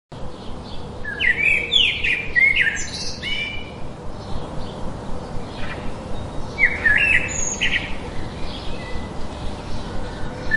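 Small birds chirping in short, sharply rising and falling calls, in a cluster about a second in and another around six and a half seconds, over steady background noise.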